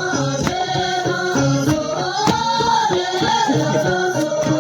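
Music with a singing voice, long held and gliding melodic lines over accompaniment with occasional sharp percussive strokes.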